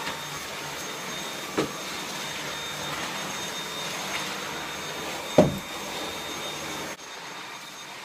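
Dyson V8 cordless stick vacuum running steadily with its soft-roller hard-floor head on laminate, a constant motor whine, with two sharp knocks about one and a half and five and a half seconds in, the second the louder. About seven seconds in the sound drops and is heard from farther away.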